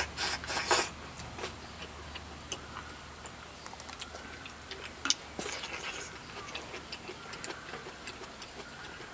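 A person eating soupy spicy hot pot from a bowl with chopsticks: slurps near the start and again about five seconds in, with chewing and small scattered clicks between them.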